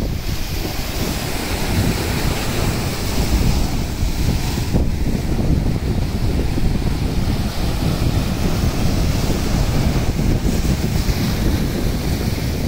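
Sea waves surging and breaking over rocks, with wind buffeting the microphone in a steady low rumble.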